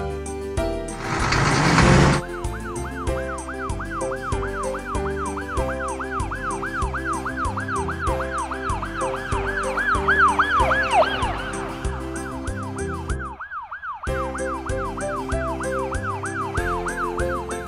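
Cartoon ambulance siren sound effect: a fast yelp sweeping up and down about two to three times a second, over background music. It drops out briefly near the end and then resumes. Just before the siren starts, a short loud rushing whoosh is the loudest sound.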